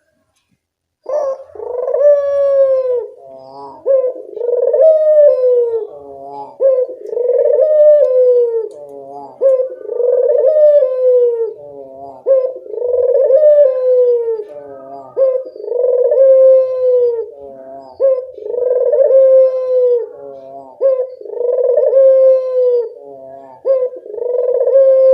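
Burung puter (ring-necked dove) cooing over and over: about nine phrases of roughly two seconds each, separated by short pauses, starting about a second in. Each coo swells and then falls in pitch.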